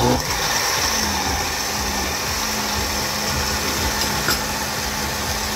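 Countertop electric blender switching on and running steadily, puréeing tomatoes, peppers, onions and crayfish with water, its motor giving a steady hum under the whir of the blades.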